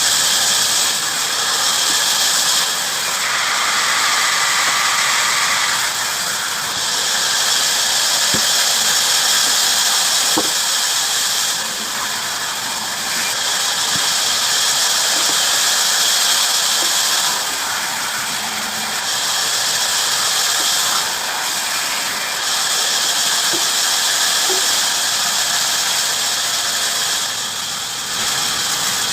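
Bandsaw running and cutting through wood: a loud, steady high hiss of the blade in the cut that eases off briefly every few seconds and then comes back.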